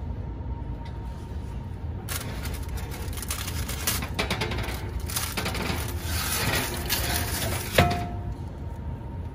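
Parchment paper crinkling and rustling as a loaf is lifted on it and shifted onto a wire oven rack. Near the end, one sharp metallic clank rings briefly as the cast-iron pan knocks against the rack.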